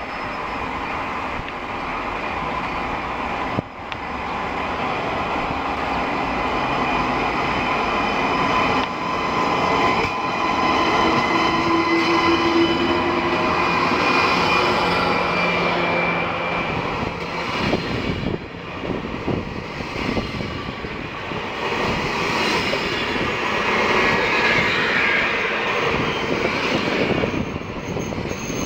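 TGV Duplex double-deck high-speed trainset rolling past along the station platform: a steady rushing rumble with humming tones in it, growing louder over the first several seconds as the train draws alongside.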